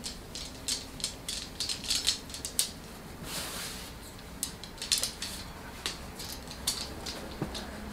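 Irregular light clicks, clinks and rustles of small objects handled on a cluttered table, with a brief swishing rustle a little past the middle.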